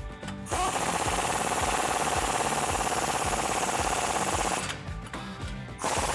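Impact wrench driving the nuts on an exhaust flange joint. It spins up and hammers rapidly for about four seconds, stops for about a second, then hammers again near the end.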